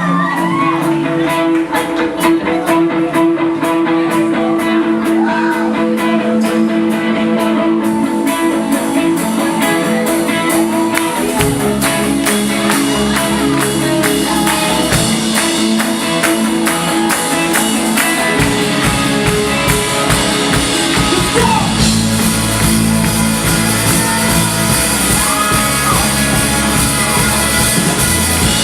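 Live rock band playing the opening of a song. It starts sparse over a steady pulse, the low end comes in about a third of the way through, and the full band is playing louder and brighter for the last third.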